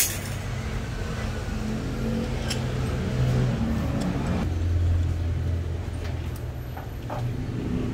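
A motor vehicle engine running steadily, getting louder about halfway through and then easing off. A few light metal clinks sound over it.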